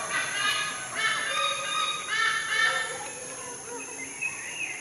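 Eagle calling: three drawn-out calls, each with a clear pitch, about a second apart, then fainter bird chirps in the last two seconds.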